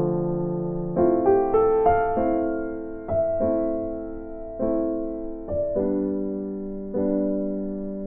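Background music: gentle piano chords struck about once a second, each fading before the next, with a short run of quicker notes about a second in.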